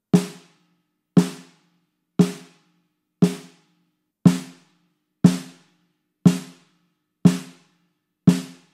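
Snare drum damped with a Big Fat Snare Drum pad on its head, struck dead centre with a stick nine times, about once a second. Each hit is short and dry and dies away quickly. The close-miked sound is unprocessed (no EQ, compression or gating) until the last hit.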